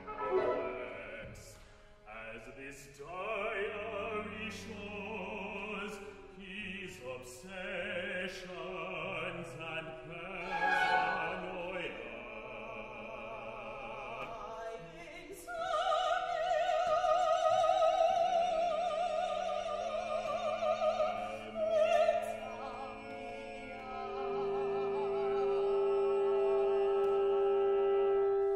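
Contemporary chamber opera: a singer with a small instrumental ensemble. Sharp percussion strikes punctuate the first half, then comes a loud sung line with wide vibrato, and a long steady note is held near the end.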